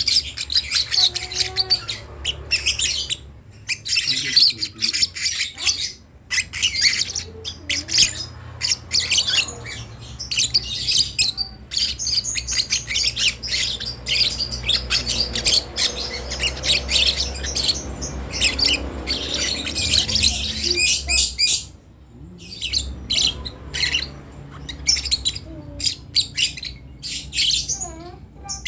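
Young lovebird chirping and squawking in rapid, shrill, almost unbroken chatter, with a few brief pauses: a chick practising its calls.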